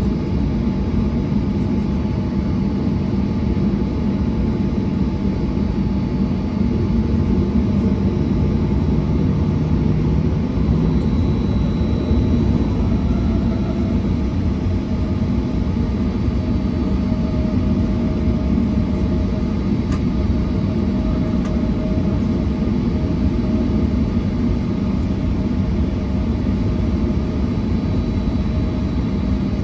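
Airliner jet engines running at low taxi power, heard from inside the passenger cabin as a steady low drone with a few faint whining tones.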